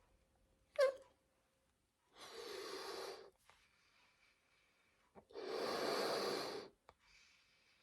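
A person blowing air into a rubber balloon in two long breaths, each lasting just over a second. A short, sharp squeak that falls in pitch comes about a second in, and faint hissing can be heard between the breaths.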